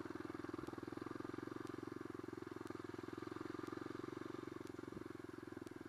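Dirt bike engine running steadily at low speed while being ridden, with a fast, even exhaust pulse that eases off slightly near the end.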